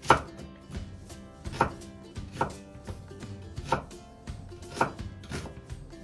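A kitchen knife cutting through a peeled onion and striking a wooden cutting board in unhurried single chops, about one a second, the first the loudest.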